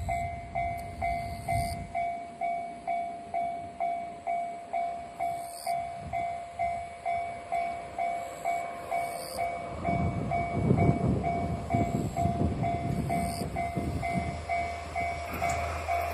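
Japanese railway level-crossing alarm ringing, an electronic ding about twice a second. About ten seconds in, a train runs past over the crossing, its wheels rumbling and clattering on the rails under the ringing alarm.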